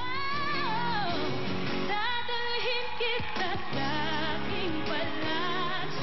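A woman singing a pop ballad live over an accompaniment, a long held note that bends down near the start, then quick wavering runs and vibrato.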